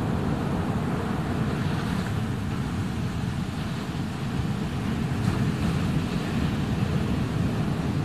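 Ocean surf washing in a steady hiss, with wind buffeting the microphone as a low, choppy rumble that is the loudest part.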